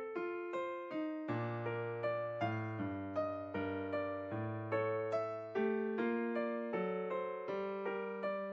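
Background music: a piano playing a steady, evenly paced melody with chords, notes struck about three times a second.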